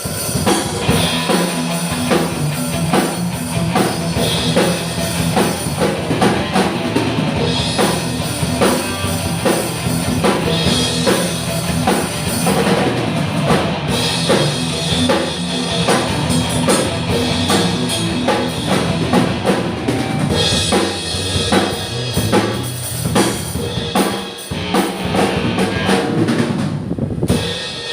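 Music with a drum kit playing throughout: bass drum and snare hits over steady low pitched notes from other instruments.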